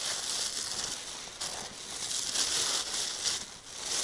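Thin plastic bags crinkling and rustling as hands squeeze cottage cheese out of one bag into a bag of groundbait, in an uneven crackle that eases off near the end.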